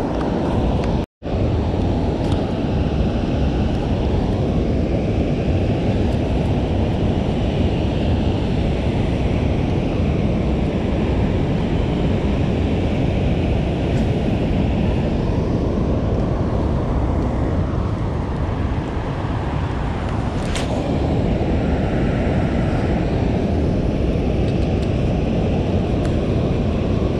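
Steady low rush of water pouring through open dam spillway gates and churning in the tailwater. The sound cuts out briefly about a second in, and there is a sharp click about twenty seconds in.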